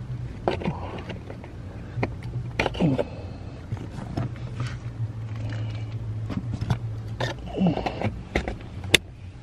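Hands working a wiring connector up under the dashboard to plug it into the replacement blower motor resistor: scattered scrapes, rustles and clicks of plastic, with one sharp click near the end, over a steady low hum.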